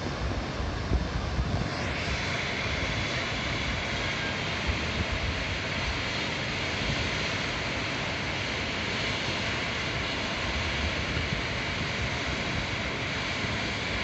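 Steady roar of a river in flood, swollen by typhoon rain, with irregular low rumbling from wind gusts on the microphone.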